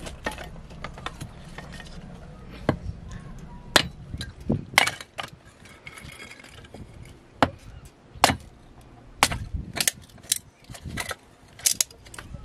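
Small hatchet chopping and splitting sticks of wood into kindling: sharp, irregular knocks of the blade into the wood, some in quick pairs and some a second or more apart.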